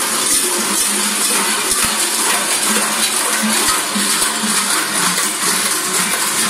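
Many large bells worn by Krampus figures clanging and jangling together without a break.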